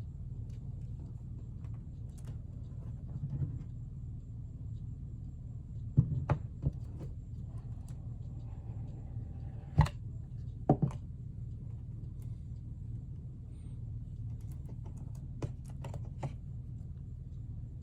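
Handling noises from unboxing an iPhone 4S: scattered sharp clicks and knocks of the box and phone being handled, a cluster about six seconds in, the loudest near ten seconds and a pair just after, over a steady low hum.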